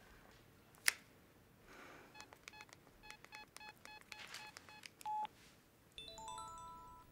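Mobile phone keypad beeping as a number is dialled: about a dozen quick key beeps, then one longer beep, then a brief run of overlapping electronic tones from the phone as the call goes through. A sharp click comes about a second in.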